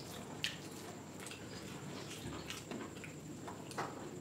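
Faint eating sounds: fingers working rice and chicken curry on a plate and mouths chewing, with a few small wet clicks scattered through.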